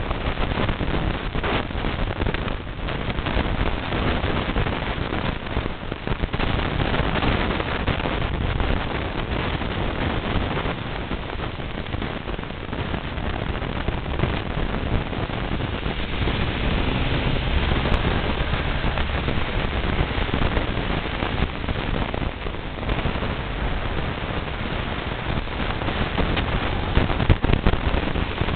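Storm wind buffeting the microphone: a steady rushing noise, heaviest in the low end, with frequent crackles.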